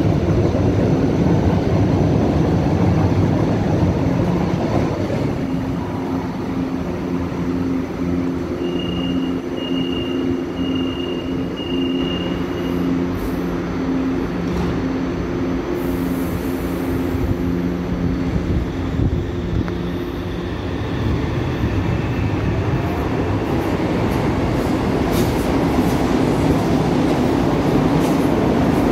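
São Paulo Metro trains in a station: the rumble of a train moving along the platform, then a steady pulsing low hum from a standing train with four short high beeps about a second apart near the middle. Near the end, a train's running noise builds again.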